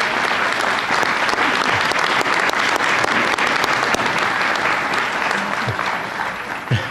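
Audience applauding, a dense clapping that is already strong at the start and thins out toward the end.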